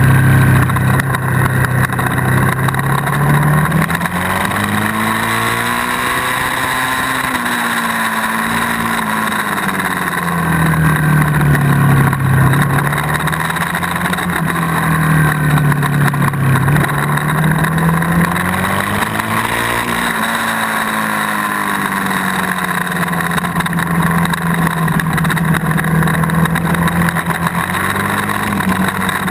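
Suzuki SV1000S's 90-degree V-twin engine at track speed, its pitch rising and falling several times as the throttle is opened and closed through the corners, under a steady rush of wind and road noise on the low-mounted camera.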